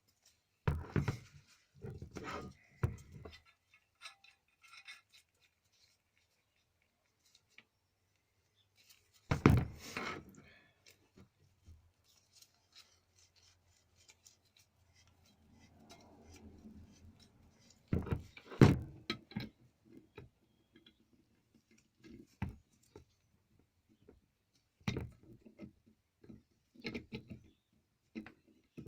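Intermittent handling noises from working on a metal garden sprinkler: clusters of sharp knocks and clicks as parts are picked up and set down, with a stretch of softer rubbing midway.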